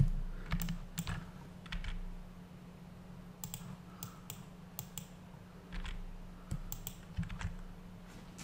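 Computer keyboard keys and mouse buttons clicking at irregular intervals while Blender shortcuts such as G and Alt+S are pressed; the first click is the loudest. A faint steady low hum runs underneath.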